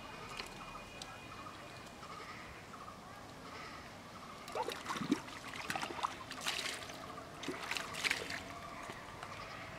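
Water splashing and sloshing as a hand scoops pond water into a muddy hole: a run of splashes starting about halfway through and stopping near the end.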